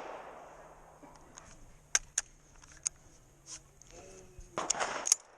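Sharp metallic clicks and knocks of a shotgun being handled, with two loud clicks close together about two seconds in and a short noisy rustle with more clicks near the end.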